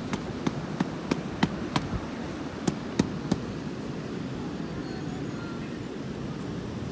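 Wind and sea surf as a steady rush, broken in the first half by a quick run of about ten sharp clicks, about three a second, that stop a little past the middle.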